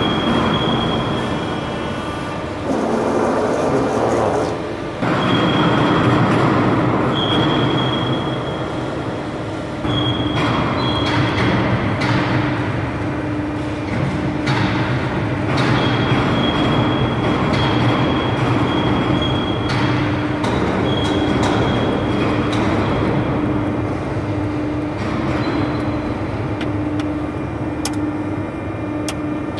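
Machinery running steadily, a constant low hum with a high whine that comes and goes in stretches of a few seconds, and now and then a sharp click or knock.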